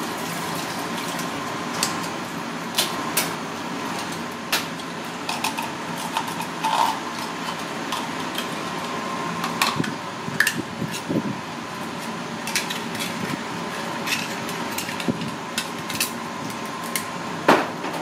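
Scattered sharp clicks, knocks and scrapes of a small knife and hands working on red clam (ark shell) shells at a steel sink, over a steady background noise with a faint steady hum.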